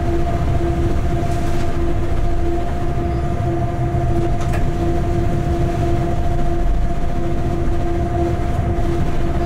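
Freight locomotive running light along the track: a steady low rumble of the wheels and running gear with a steady two-note hum on top.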